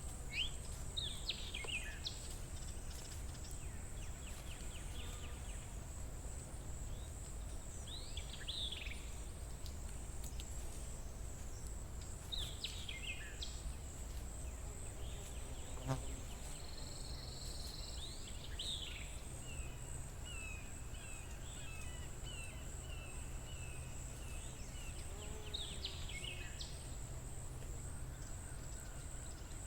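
Forest ambience: insects keep up a steady high buzz with a fast, even pulse, while birds call with short sweeping notes every few seconds, over a low steady rumble. One sharp click about halfway through.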